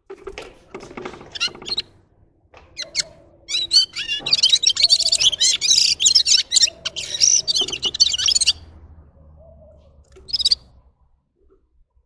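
Red-fronted serin singing: a few short chirps, then a fast, high twittering song lasting about five seconds, and one more short call near the end.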